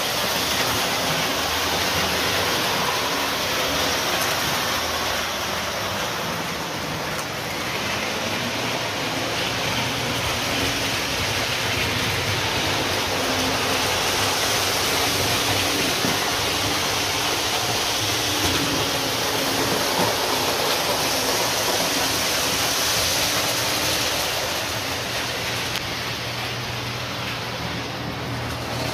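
Lionel O-gauge model trains running on three-rail track: a steady whirring rumble of the wheels and motors, with a low hum under it.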